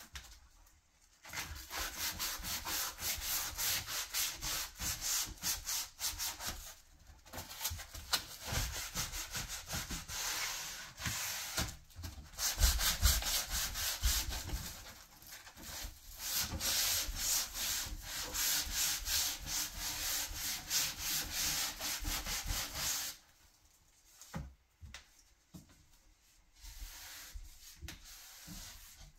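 Hand sanding along the edge of a painted wooden board with a folded sheet of sandpaper, in quick back-and-forth strokes: the final sanding of a furniture refinish. The sanding pauses briefly about seven seconds in and stops about 23 seconds in. Softer, sparser rubbing follows as the board is wiped with a cloth.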